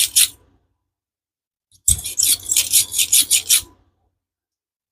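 A small handheld hole-making tool rasping through a cured resin piece from the back. It gives a brief scrape, then about two seconds in a quick run of about eight scratchy strokes, roughly four a second.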